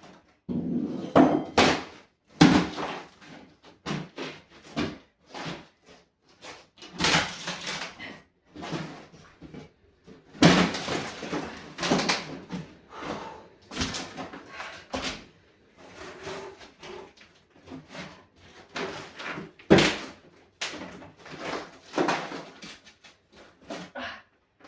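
Old rotten wooden floorboards being pried up and pulled loose: irregular knocks, cracks, clatter and scraping of wood, some hits much louder than others.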